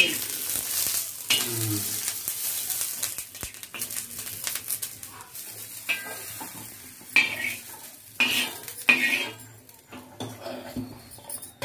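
Green chillies sizzling in a little oil in a black pan, stirred with a steel spoon. From about six seconds in, the spoon scrapes the pan and clinks against a steel bowl as the roasted chillies are scooped out.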